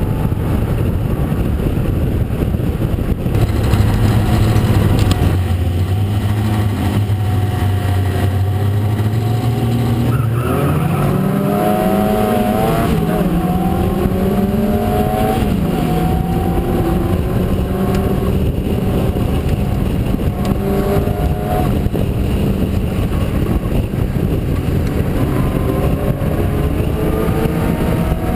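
Onboard sound of a Locost club racing car's engine in an open cockpit, running at low, steady revs at first, then revving up in rising sweeps from about ten seconds in, with other racing cars' engines around it, and settling to steadier revs with shifts in pitch.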